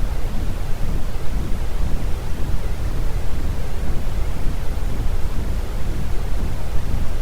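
Steady generated noise for sleep and relaxation, a continuous even hiss with no changes, heavier in the low end than the high end.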